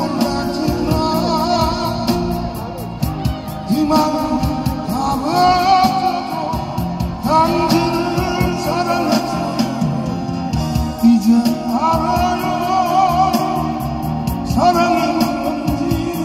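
A man singing a Korean ballad in long phrases with vibrato, accompanied by a steadily strummed acoustic guitar.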